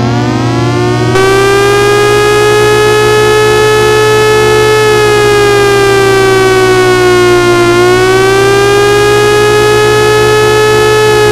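Federal Signal Thunderbolt 1003A civil defense siren finishing its wind-up, its pitch rising and the tone growing louder and fuller about a second in. It then holds a steady, loud wail with many overtones, the pitch sagging slightly and coming back up near two-thirds of the way through.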